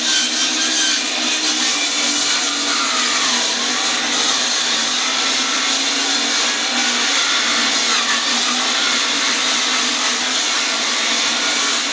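Electric power saw ripping lengthwise through a heavy ash log, its blade cutting steadily under load. The motor is working hard and is prone to overheating.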